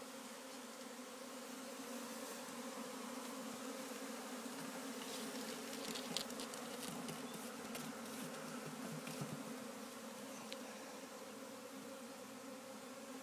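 A swarm of honeybees buzzing steadily in a dense, even hum, just after being shaken into a box. A few faint clicks sound about halfway through.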